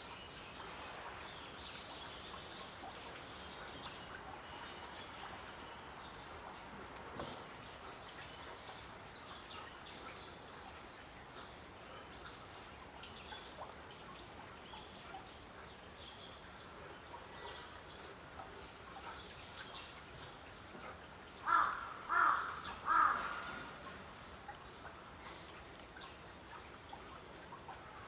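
Outdoor ambience with small birds chirping repeatedly in short high notes, and about three-quarters of the way in, three loud calls in quick succession from a larger bird.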